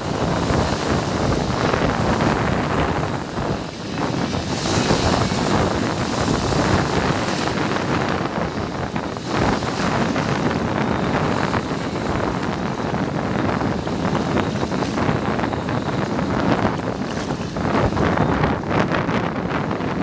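Wind buffeting the microphone, over the steady wash of sea waves.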